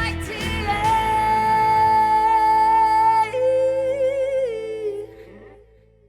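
A female singer holds long wordless final notes with vibrato over instrumental backing, first a high note and then a lower one, as the song ends. The sound dies away about five seconds in.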